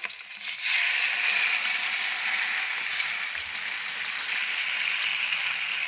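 Tomato paste poured into hot oil with green chillies in a wok, sizzling. The sizzle swells suddenly about half a second in as the paste meets the oil, then runs steadily, easing a little.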